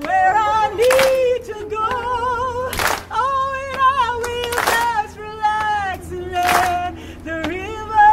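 A woman leads a crowd in slow group singing of a folk song, holding each note for about a second with a waver in the voice. A sharp beat sounds about every two seconds under the voices.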